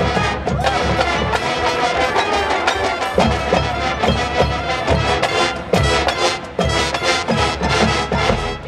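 High school marching band playing its field show: brass and woodwinds with marching drums and a front-ensemble percussion section, heard in the open air from the stadium stands.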